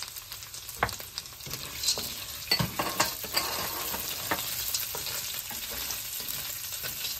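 Peanuts, diced potato and onion sizzling in ghee in a stainless steel pan, stirred with a spatula that scrapes and knocks against the pan, the knocks coming mostly between about one and three and a half seconds in.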